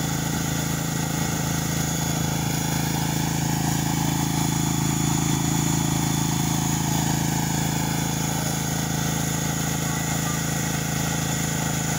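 Small engine of a pickup-mounted wildfire pump unit running steadily at constant speed while it feeds water to a hose.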